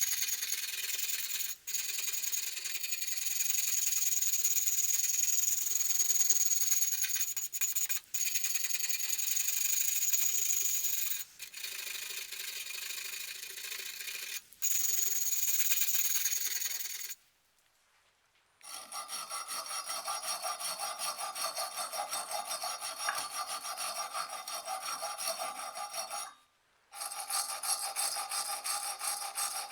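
Hand abrasive work, rubbing and scraping, in short runs broken by brief cuts. From about nineteen seconds in it becomes a quick back-and-forth stroking, about two strokes a second, like filing or sanding.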